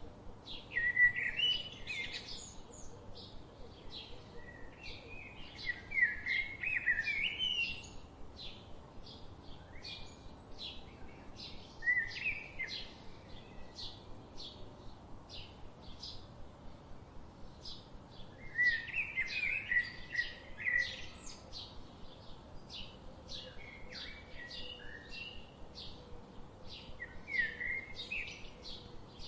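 Songbirds chirping: short high chirps repeat about twice a second throughout, and louder warbling song phrases break in several times, over a faint steady background hiss.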